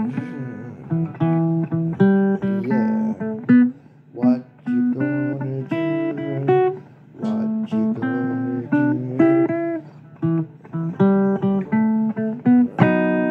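Acoustic guitar playing a blues instrumental passage: picked single notes and short strummed chords in phrases with brief pauses.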